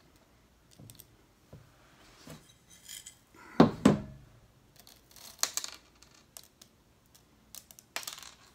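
Small metal pieces clinking as they are handled and dropped one by one into a silencer tube to pack it, in irregular clicks with a louder cluster of clinks a little before the middle.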